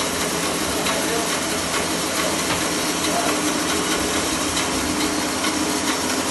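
Woodworking machine running steadily: a continuous hum with a hiss of noise over it and no pauses.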